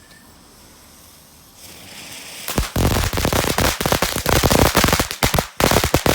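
Small crackling firework fountain lighting up: a short hiss builds, then about two and a half seconds in it breaks into loud, dense, rapid crackling that keeps going.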